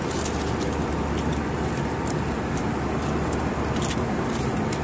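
Steady jet airliner cabin noise in flight: the even rush of air and engine drone, with a low hum underneath and a few light clicks.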